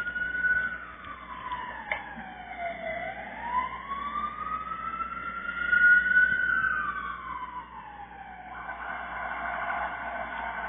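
Fire truck siren wailing, its pitch slowly rising and falling twice, with a steady blaring tone taking over near the end.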